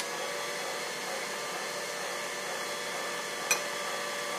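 Stand mixer running steadily on low speed with a whine, its dough hook working freshly added flour into the dough. A single sharp click about three and a half seconds in.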